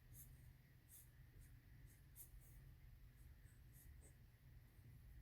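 Faint scratching of a drawing tool on paper, in short strokes at an uneven pace, over a low steady hum.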